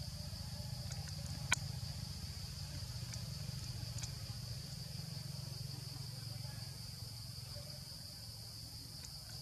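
Forest insects keep up a steady high-pitched drone, with a low rumble underneath. A single sharp click sounds about a second and a half in, followed by a few faint ticks around four seconds.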